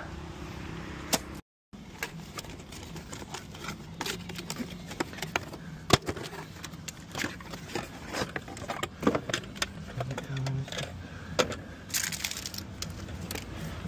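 A cardboard box being opened and a plastic weatherproof socket and its back box handled: scattered rustles, clicks and light knocks, with a louder rustle of cardboard about twelve seconds in.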